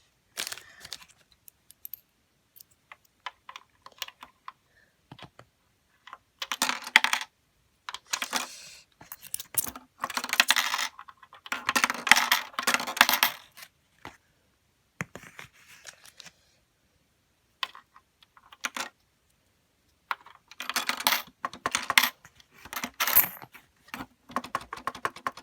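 Coins dropping through a LEGO brick vending machine's coin mechanism, clicking and rattling against the plastic bricks in three clusters with scattered single clicks between. They are invalid coins being rejected and falling out to the coin return.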